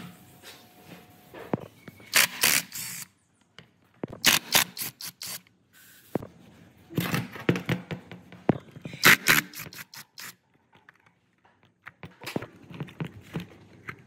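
Hand work on the metal parts of an old demolition hammer: scraping, clinking and clicks in short clusters, broken by brief silent gaps.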